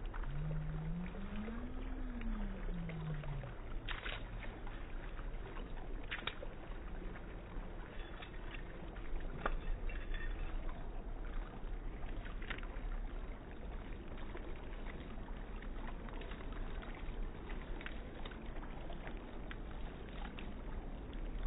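Slow-motion playback of a dog's tail swishing in shallow water: a low, drawn-out watery wash with a few sharp ticks or splashes. A tone rises and falls in the first few seconds.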